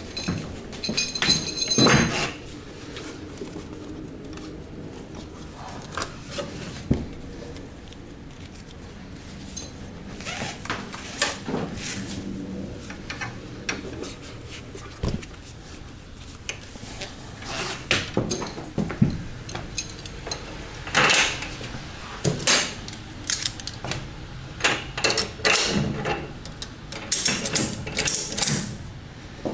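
Metal hooks and buckles of motorcycle tie-down straps clinking and clicking against steel E-track rails as the straps are hooked on and tightened, a string of irregular clicks and rattles with a few ringing metal knocks near the start, heard in the boxy hollow of an enclosed trailer.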